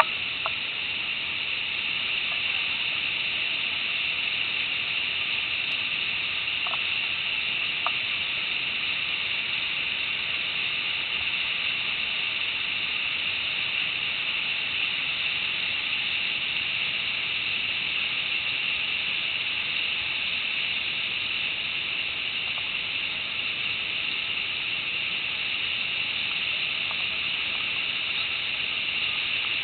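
Waterfall's falling water: a steady rushing hiss that does not change.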